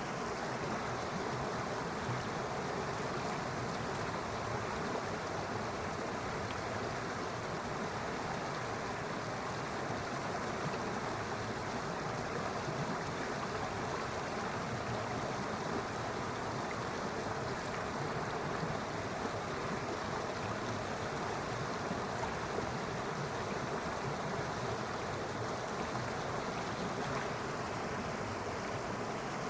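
Running water rushing steadily, an even noise without pauses or changes.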